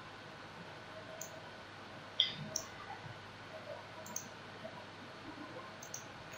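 A few computer mouse clicks, the loudest about two seconds in, over faint room hiss.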